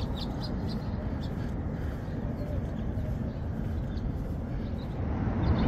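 Outdoor street ambience: a steady low rumble of wind on the microphone and traffic, with small birds chirping several times in the first second and a few times again near the end.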